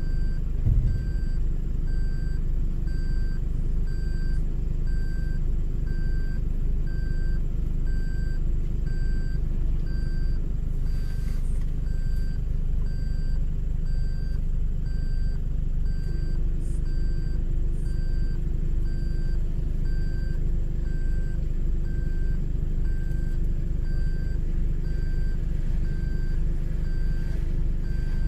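A vehicle engine running steadily with a low rumble, accompanied by a regular repeating high electronic beep. There is a brief knock about a second in.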